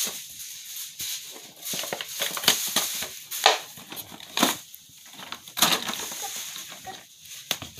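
Handling noise: irregular clicks, taps and rustling of small toy monster trucks and a cardboard track.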